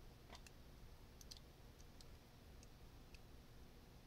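Near silence: room tone with faint, scattered small clicks, about eight in all, from a Microsoft Band 2 fitness band being handled in the fingers.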